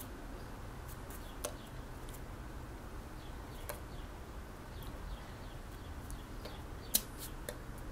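Outdoor background ambience: a steady low hum with faint, scattered bird chirps and a few sharp clicks, the loudest click about seven seconds in.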